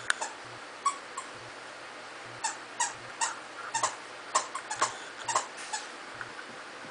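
Puppies yipping and squealing in play: a string of short, high-pitched yelps, thickest in the middle few seconds.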